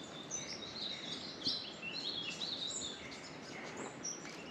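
Small birds chirping in rainforest, with many quick, high notes that step up and down in pitch and overlap, over a steady background hiss.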